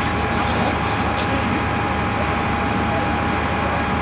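Fireground engine noise: a fire-engine pump running steadily, with a constant high whine over a dense rushing hiss.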